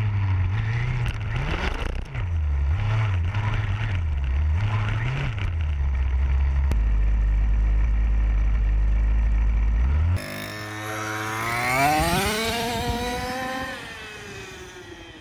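An HPI Baja RC car's 32cc Zenoah G32 two-stroke engine with a resonance pipe. For about ten seconds it is a heavy, wobbling low rumble under wind buffeting. Then it revs up in a long rising whine and drops in pitch as the car speeds past.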